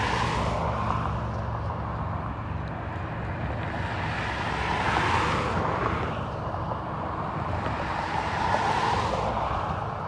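Steeple-cab electric freight locomotive rolling slowly on its track, a steady hum and rumble that swells about halfway through and again near the end.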